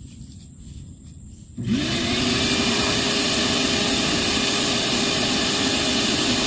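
Wet-dry shop vacuum switched on about one and a half seconds in: its motor spins up quickly to a steady high whine with a rush of air.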